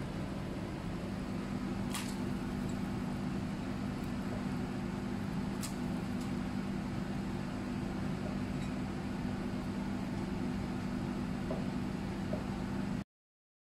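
Steady low machine hum of a running kitchen motor, with two faint clicks early on; it cuts off suddenly near the end.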